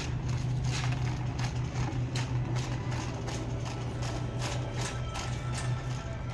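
Shopping cart rolling over a tiled store floor, its wheels clacking at the tile joints and the wire basket rattling in a quick, uneven run of clicks over a steady low hum.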